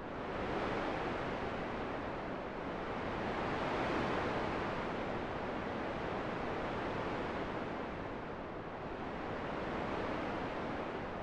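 Wind blowing, a steady rushing that swells a little about four seconds in and again near the end.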